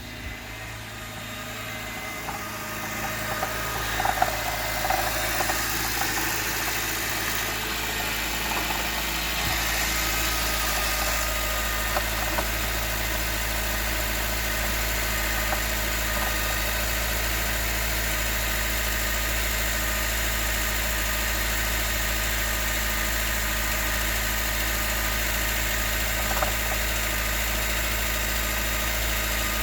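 2019 Honda CR-V Hybrid's petrol engine on a cold start, coming up in level over the first several seconds and then running steadily. Scattered sharp knocks sound over it, several together about four seconds in and single ones later: the cold-start knocking the owner is concerned about.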